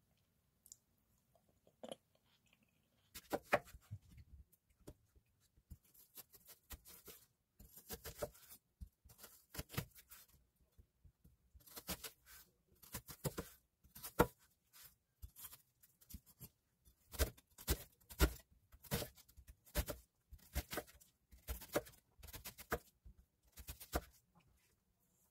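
Kitchen knife cutting a peeled onion on a wooden cutting board: crisp crunching cuts and knocks of the blade on the board in quick runs of strokes with short pauses, starting about three seconds in.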